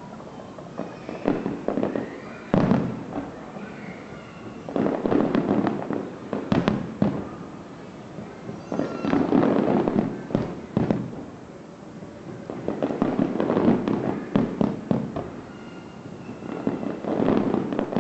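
Aerial fireworks display: volleys of bangs and crackling shells going off in waves about every four seconds.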